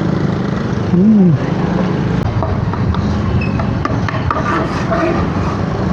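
Honda Click 150 scooter engine running at cruising speed, with road and traffic noise around it. A short tone rises and falls about a second in.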